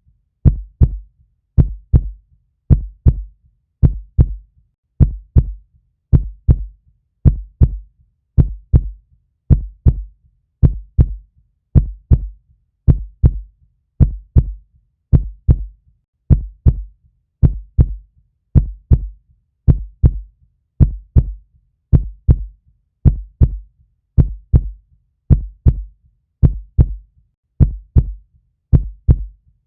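Human heartbeat: low double thumps (lub-dub) repeating steadily at about one beat a second.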